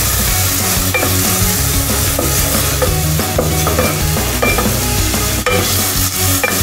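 Chopped onions sizzling as they fry in a pan, with a wooden spoon stirring them and scraping against the pan.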